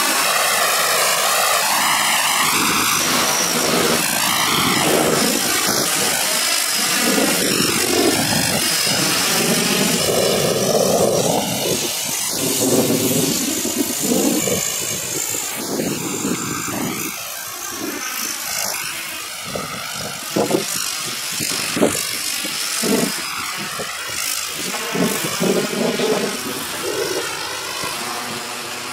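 Aircraft engines running in flight as a loud, steady drone with a wavering throb. About halfway through it turns a little quieter and more uneven, with brief surges.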